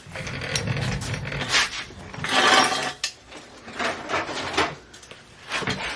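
Metal scraping, rattling and knocking from a BMX bike's bottom bracket and crank as they are worked loose by hand. The strokes are irregular, and the longest, loudest scrape comes about two and a half seconds in.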